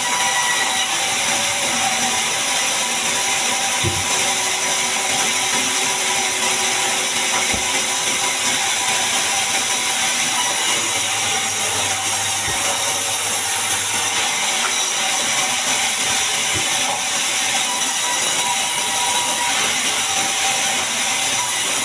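Sawmill bandsaw running through a large mahogany log, giving a steady, loud, hissing noise with a few faint knocks.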